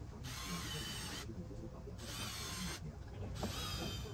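Cordless impact driver run in three short bursts of under a second each, driving screws to fasten a speaker into a door pod.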